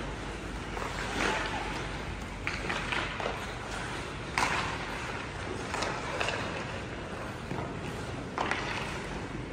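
Youth ice hockey play: skate blades scraping and carving on the ice in a steady hiss with repeated scraping swells, broken by several sharp clacks of sticks and puck, the loudest about four and a half seconds in and again near the end.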